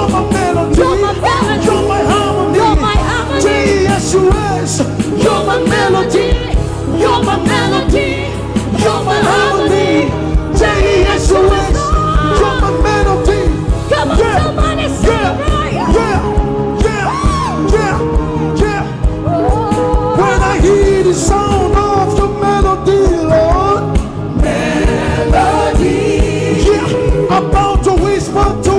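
Gospel song: sung vocals over a full band, with a steady drum beat coming in about ten seconds in.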